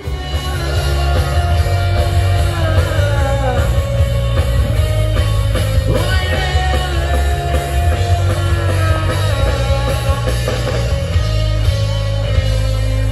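Rock band playing with a singer over a heavy bass line.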